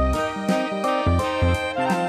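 Background music with a steady beat: instrumental notes over a regular bass pulse.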